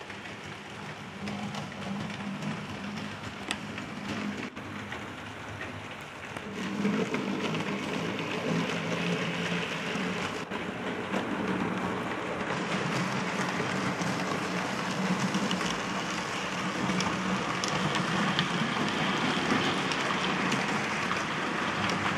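OO gauge model Royal Scot locomotives hauling their trains along the layout track: a steady rolling clatter of wheels on rail that gets louder about seven seconds in.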